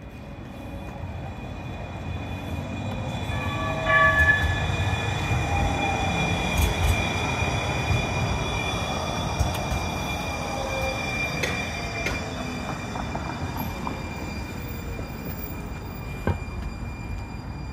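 Siemens S70 streetcar passing at street level: the rumble of its wheels on the rails and the whine of its electric drive swell as it draws near and fade as it moves away. A brief warning signal sounds about four seconds in.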